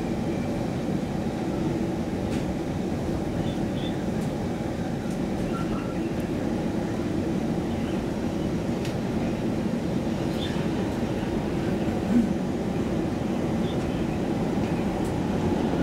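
Stockholm Metro C20 train running at speed, heard from inside the carriage: a steady, even rumble with a few faint clicks.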